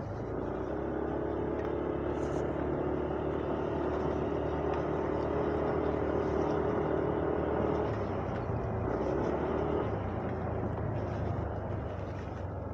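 Yamaha Aerox V2 scooter's 155 cc single-cylinder engine running steadily on the move, under a steady rush of wind and road noise. Its higher engine note fades about eight to ten seconds in as the throttle eases off.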